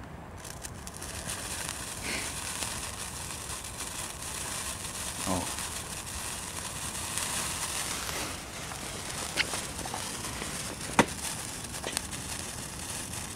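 A lit sparkler fizzing and crackling steadily, with a few sharp clicks, the loudest about ten seconds in.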